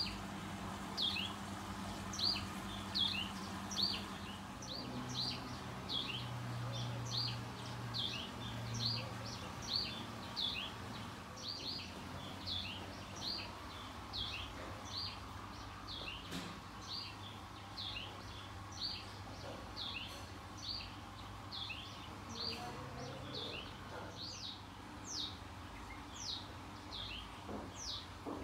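A bird chirping over and over, about two short downward-sliding chirps a second, with a faint low hum underneath.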